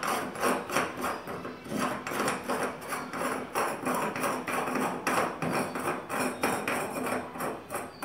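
Check nut being screwed by hand onto a bathtub's waste coupling, making quick rhythmic scraping clicks about four times a second as it is run down the thread and locked.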